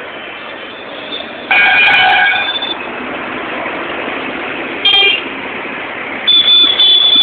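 Vehicle horns honking over steady street traffic noise: a honk of about a second, a short toot midway, and a longer, broken honk near the end.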